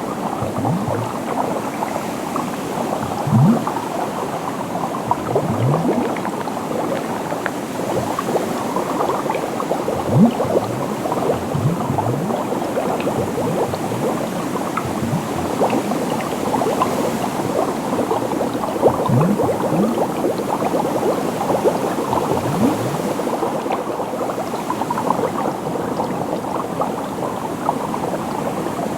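Liquid bubbling and popping in a dense, continuous stream. Every few seconds a deeper bubble bloops with a quick rise in pitch, for instance about 3, 6, 10, 19 and 22 seconds in.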